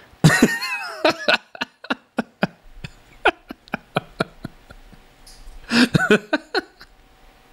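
A man's wordless vocal reaction of exasperated disbelief: a drawn-out falling vocal sound at the start, then a string of short breathy chuckles, and another brief vocal outburst about six seconds in.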